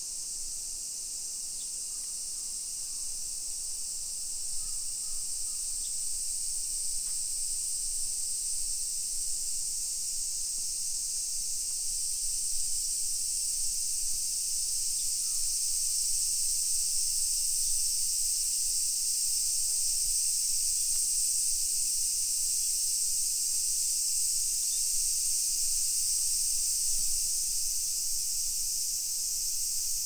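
Summer cicadas in chorus, a steady high shrill buzz that grows a little louder over the first half and then holds.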